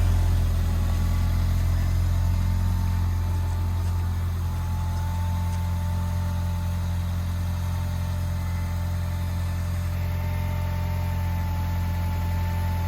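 Engine of an Atlet all-terrain vehicle running steadily at an even pitch, a low hum with a thin whine above it. It eases off slightly in the first few seconds, then holds steady.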